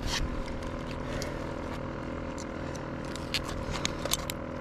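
A motor hums steadily, with scattered sharp clicks and knocks of gear being handled in a kayak, a few louder ones about a second in and between three and four seconds in.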